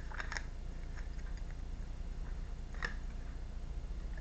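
Steady low electrical hum with a few light clicks at the start and one sharper click a little under three seconds in.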